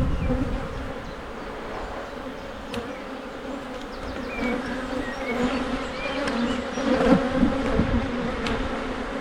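Honey bees from an open hive buzzing in a steady hum, with a few light knocks from the wooden hive frames being shifted into place.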